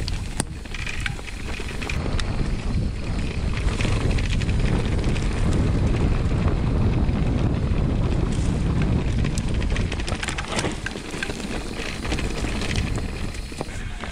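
Orbea Rise electric mountain bike being ridden along a trail: tyres rolling and the bike rattling, with many small clicks and knocks, under wind rushing over the microphone. It gets louder after about two seconds and eases off in the last few seconds.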